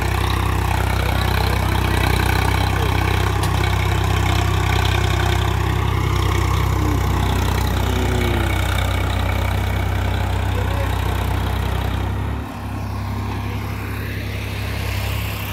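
Farm tractor's diesel engine running steadily under load while it drives a rotary tiller through dry soil. The level dips briefly and falls slightly about twelve seconds in.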